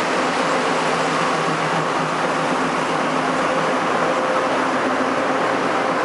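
Diesel railcar's engine running steadily: a constant hum with a few steady tones over an even rush of noise.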